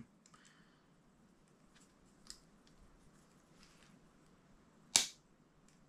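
Faint handling clicks of Leatherman trauma shears' ring cutter being set on a silver ring, then about five seconds in one sharp snap as the cutter cuts into the ring.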